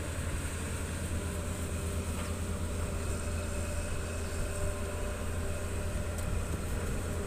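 Hitachi ZX200 hydraulic excavator's diesel engine running steadily: a constant low rumble with a faint steady tone above it.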